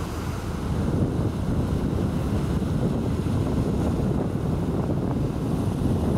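Wind blowing on the microphone, a steady low rumble, with waves washing against the shore rocks.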